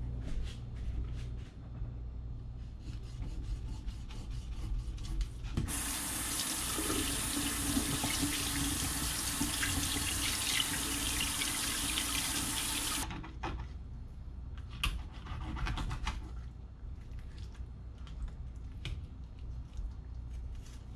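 Kitchen faucet running full into a stainless steel sink for about seven seconds, starting about six seconds in and cutting off sharply, as hands are rinsed under it. Around it, scattered faint clicks and a steady low hum.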